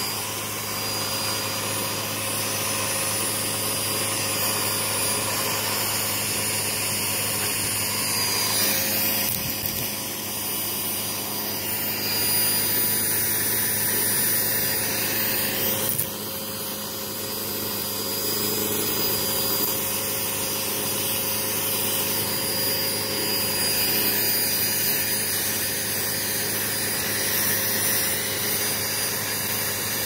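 Vacuum cleaner running steadily with a constant motor hum and whine. Its pitch shifts slightly a few times, and its level dips sharply for a moment about halfway through.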